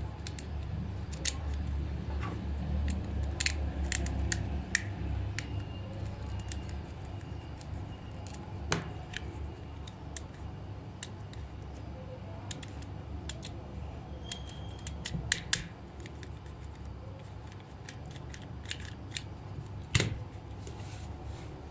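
Hard plastic shell and legs of a toy praying mantis being handled and pressed together: irregular sharp clicks and snaps over a low rumble, with the loudest click near the end.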